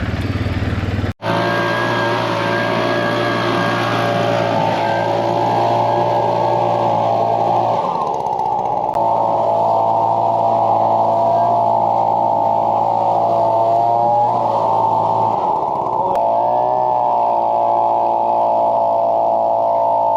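An engine running steadily, its drone shifting slightly in pitch a few times, after a sudden cut about a second in.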